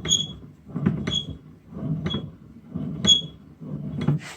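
Metal parts of a homemade lathe mechanism, turned by hand, give a short clinking ping with a high ringing tone about once a second, over a low rattling rumble.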